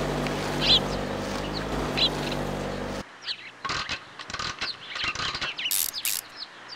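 Small birds chirping in short calls. A steady sound of several held low tones runs beneath them and cuts off abruptly about three seconds in. A run of short, irregular clicks and scrapes follows.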